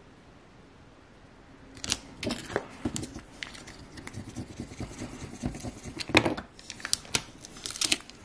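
Felt-edged vinyl squeegee rubbing transfer tape down over a vinyl letter on an acrylic blank: a quiet start, then a run of quick scratchy scraping strokes from about two seconds in, with the transfer tape being peeled off near the end.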